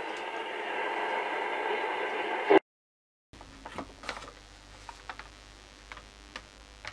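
Hiss of an AM radio tuned between stations, which cuts off suddenly about two and a half seconds in. After a moment of dead silence comes faint workshop room tone with small scattered clicks and paper rustles.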